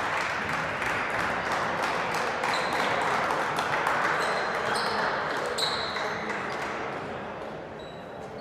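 Crowd chatter in a school gymnasium, with short high sneaker squeaks and a basketball bouncing on the hardwood floor. The noise settles down after about seven seconds.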